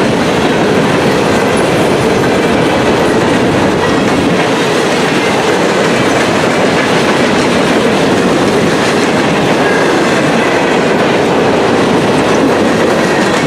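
Freight cars of a 175-car Norfolk Southern freight train rolling past, wheels running over the rail: a steady, unbroken train noise.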